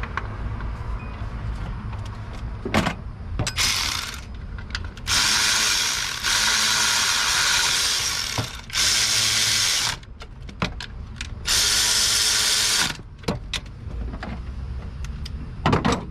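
A power ratchet run in five bursts of about one to two seconds each, spinning bolts in snug without torque, with sharp tool clicks and knocks in between.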